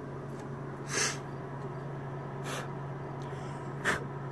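Three short breathy puffs, the first about a second in being the loudest, over a steady low hum.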